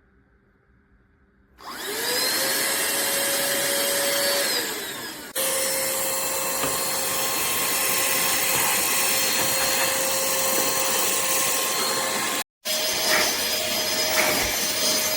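Pemacom cordless handheld vacuum switched on: its motor whine rises to speed, winds down and stops about five seconds in, then runs again steadily, with a brief break and a few scraping strokes near the end.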